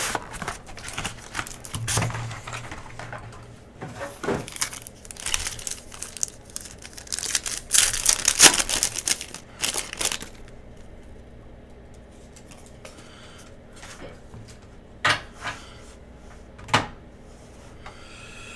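Trading-card pack wrapper being torn open and crinkled, loudest around eight seconds in. Then the cards are slid and shuffled against each other more quietly, with two sharp taps near the end.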